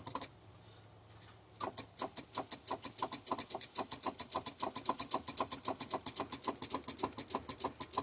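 Starter solenoid of a Cummins ISX truck engine clicking, or "bumping", in a rapid even train of about six clicks a second, with a pause of about a second near the start, while the engine does not crank. With battery voltage present, the owner takes this for a failing starter.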